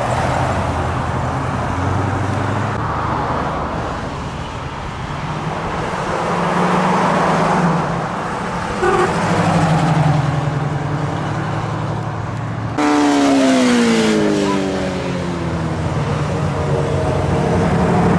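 Classic cars and hot rods driving past one after another at low speed, engines running. About thirteen seconds in, a louder engine note sets in suddenly and falls steadily in pitch as a car passes and eases off.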